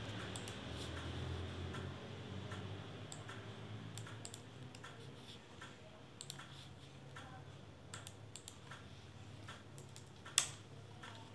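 Scattered clicks of a computer mouse and laptop keys, irregularly spaced, with one louder click about ten seconds in, over a low hum.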